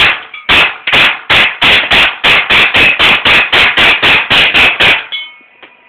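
Smith & Wesson Sigma 40 CO2 BB pistol fired rapidly in semi-auto, about four loud sharp cracks a second, some twenty shots, stopping about five seconds in.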